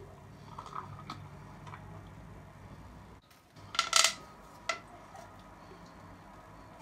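A few small clinks of glassware, then about four seconds in a short, loud crackle as a plastic bendy straw is stretched out at its ribbed joint, with one more click just after.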